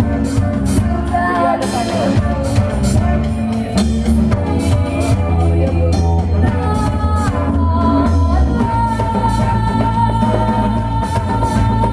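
Live band playing: electric bass, drum kit, acoustic guitar and a hand drum, with a woman singing. A long high note is held through the last third.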